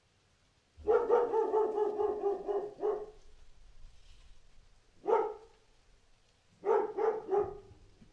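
A Doberman pinscher barking. A long, rough, drawn-out bark of about two seconds starts about a second in. A single sharp bark comes about halfway through, then three quick barks near the end.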